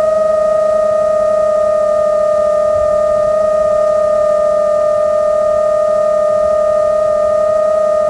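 A sustained electronic synthesizer tone with overtones, holding one pitch throughout like a drone note in background music.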